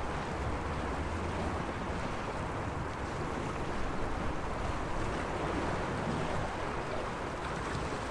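Small sea waves washing against the shore in a steady wash, with a low rumble that may be wind on the microphone.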